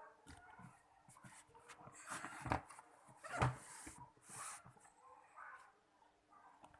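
Hands handling packaging and parts during an unboxing: rustling and scattered clicks, with two louder knocks about two and a half and three and a half seconds in.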